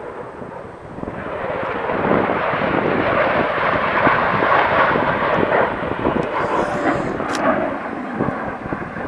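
F-16 fighter jet making a pass: crackling jet engine noise that swells about a second in, stays loud through the middle and eases off near the end.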